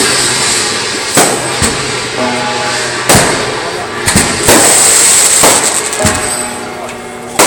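Fireworks and firecrackers going off: half a dozen sharp bangs a second or two apart over continuous crackling, with music and voices underneath.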